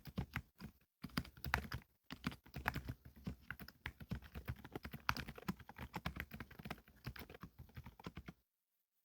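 Typing on a Qsenn Q104LCD full-size keyboard fitted with MMD silent Princess switches and Cherry-profile keycaps: a quick, continuous run of keystrokes, with a few short pauses, that stops about eight and a half seconds in.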